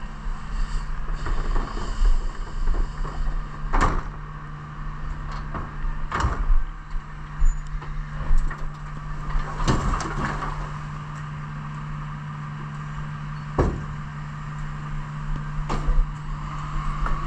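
Refuse collection truck's engine running steadily, with a handful of sharp knocks and clatters from a large four-wheeled commercial waste bin as its lid is closed and it is wheeled over to the truck's rear bin lift.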